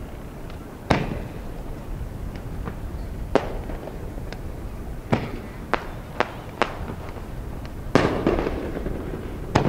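Fireworks bursting in a series of sharp bangs at irregular intervals, about eight loud ones with fainter pops between. The loudest comes about eight seconds in and is followed by a longer rumbling echo.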